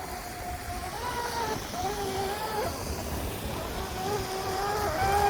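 Brushless electric motor of a small radio-controlled race boat whining at shifting throttle, its pitch stepping and gliding between steady levels and growing louder toward the end as the boat comes closer.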